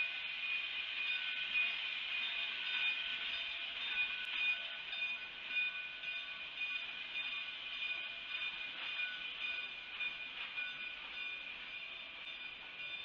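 Narrow-gauge K36 2-8-2 steam locomotive and its passenger cars rolling slowly past: a steady hissing rush with thin, steady high tones running through it, easing slightly toward the end.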